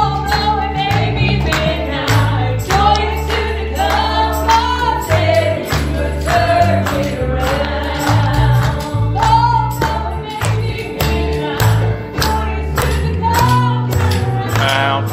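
Live gospel music: voices singing a melody over held bass notes and band accompaniment, with a steady percussive beat.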